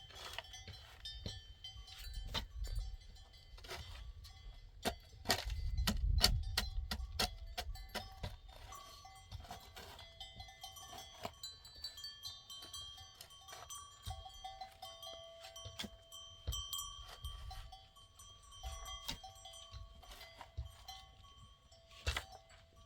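Livestock bells clinking and ringing as the flock moves, many quick strikes with tones that hang on. A louder low rumbling noise comes about five to seven seconds in.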